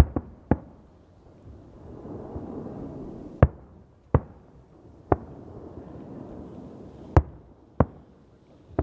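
Fireworks going off: about nine sharp, separate bangs at irregular intervals, some close together in pairs, each with a short decay.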